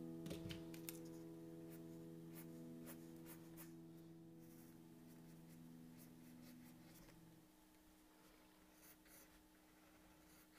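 Faint pencil strokes scratching on paper, short and irregular, in near silence. The last notes of background music fade out over the first few seconds.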